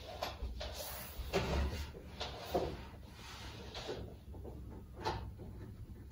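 A few light knocks and rustles, spaced irregularly, over a low steady room rumble.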